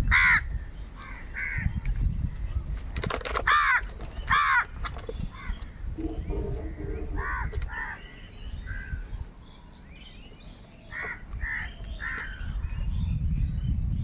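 A flock of house crows cawing in harsh bursts, several birds calling at once, with a quieter lull about two-thirds of the way through. A low rumble runs underneath.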